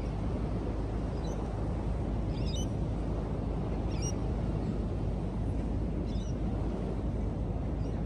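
Steady wind noise on the microphone over the sea, with a handful of short, high-pitched seagull calls spread through it.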